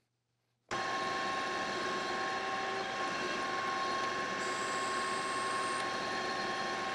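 Precision Matthews PM-1440GT metal lathe running steadily, its gear train giving a steady whine with several pitches over a mechanical rumble. The sound starts abruptly about a second in.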